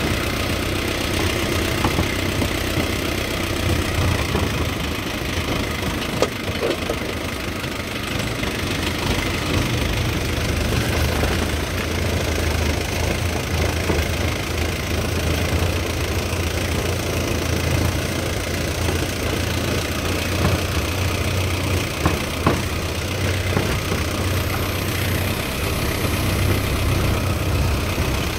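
A truck's engine running steadily as it drives along a rough dirt track, heard from on board the truck, with a low drone. A few sharp knocks cut through, once about six seconds in and twice in quick succession a little past the middle, as the truck jolts over the bumps.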